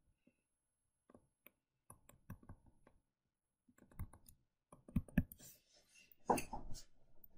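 Faint, irregular clicks and taps of a stylus on a tablet as a word is handwritten. They are sparse at first and come thicker in the second half.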